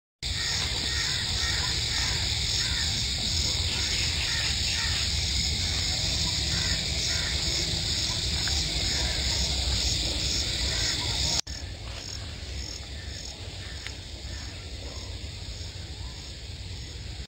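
Outdoor rural ambience: birds calling over a steady high-pitched hiss and a low rumble. About eleven seconds in the background cuts abruptly to a quieter one.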